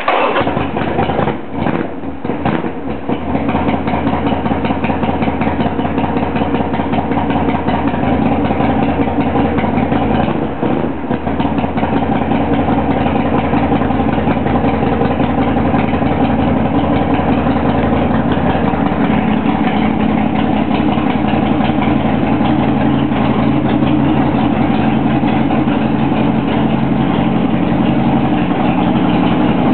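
1999 Harley-Davidson Sportster's air-cooled V-twin engine catching and running after sitting unused for a couple of months. It falters unevenly for the first few seconds and dips once more about ten seconds in, then settles into a steady idle.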